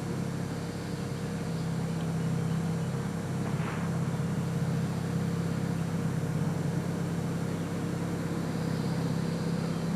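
A steady low mechanical hum, like an engine running, growing slightly louder about two seconds in.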